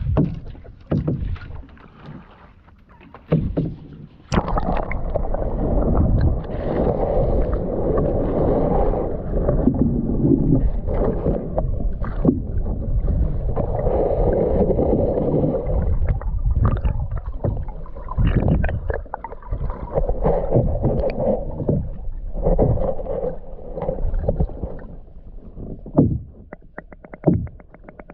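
Muffled rushing and gurgling of river water, heard with the camera microphone held under the surface, with scattered knocks and clicks and a fast even ticking near the end.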